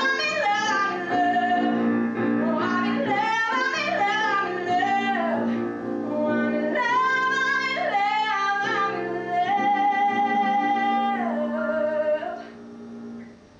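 A solo female voice singing a musical theatre song over instrumental accompaniment, with a long held note in the middle. The singing and accompaniment die away shortly before the end.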